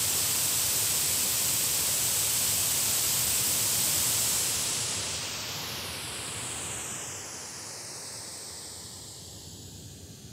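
White noise from a handheld Bluetooth speaker, as picked up by a RODE NTG5 shotgun microphone. The hiss holds steady for about four seconds. Then it grows quieter and duller, with a sweeping hollow colour, as the speaker is moved off-axis toward the back of the mic, which rejects sound from that side.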